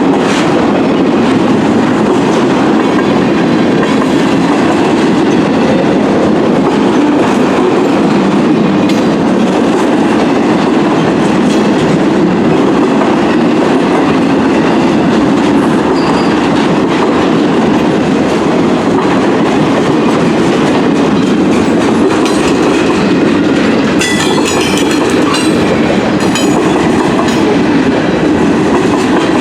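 Freight train cars rolling past at close range: steady rumble of steel wheels on the rails with clickety-clack over the rail joints. A brief higher-pitched metallic squeal comes in about three-quarters of the way through.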